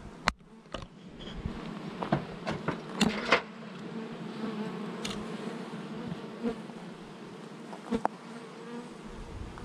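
Honeybees buzzing steadily around an opened hive, with a few sharp knocks and clicks from the wooden hive box and frames being handled.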